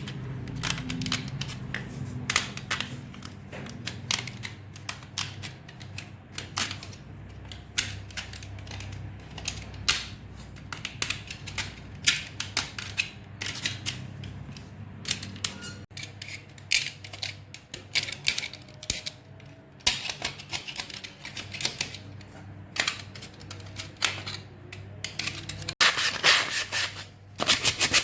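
Irregular sharp clicks and taps of hand-tool work on a small axe head, coming in quick runs with short pauses between.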